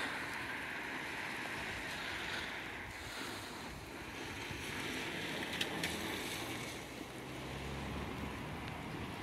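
Steady outdoor wind noise on the microphone, rising and falling slowly, with two sharp clicks a little past halfway.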